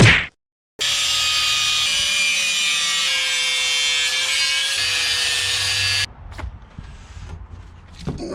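A power tool cutting metal runs for about five seconds with a steady high whine and hiss, its pitch sagging slightly under load, then cuts off abruptly. A short loud burst and a brief gap come just before it.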